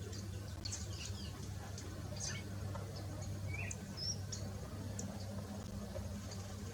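A cardeal (cardinal) giving scattered short, high chirps and call notes at irregular intervals, with a steady low hum underneath.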